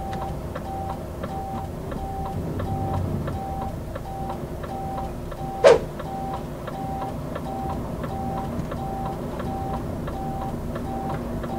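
Volvo FM truck's turn-signal indicator in the cab, ticking steadily with a short repeating beep, about one and a half beeps a second, over the low hum of the running truck. A little before the middle comes a single brief, loud snap.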